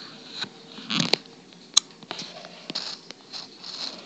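Small plastic toy dolls being moved by hand: rustling and handling noise with a few sharp clicks and taps.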